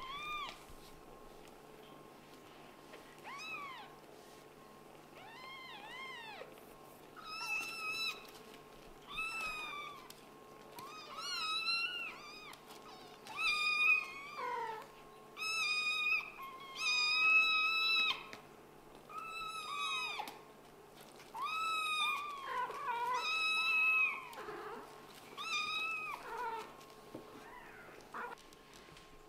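A kitten meowing over and over in high mews that rise and fall in pitch, more than twenty in all. The mews come faster and louder from about seven seconds in and stop a few seconds before the end.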